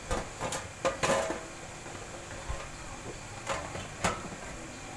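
Sheet-metal top cover of a stereo amplifier being lifted off its chassis: a few knocks and clanks of thin metal, the loudest about a second in and a couple more near the end.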